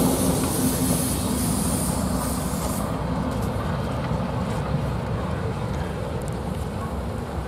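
Diesel locomotive's engine running as it hauls a train of passenger coaches past, a steady low rumble growing slowly fainter as the train moves away.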